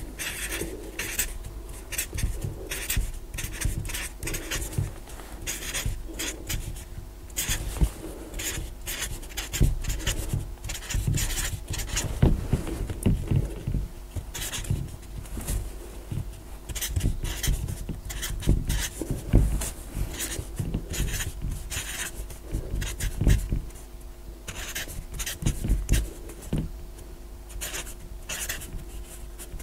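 Marker pen squeaking and scratching on a board as digits are written one after another in quick, short strokes.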